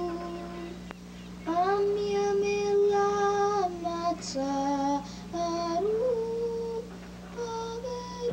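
A boy singing a slow melody alone, holding long notes with short pauses between phrases.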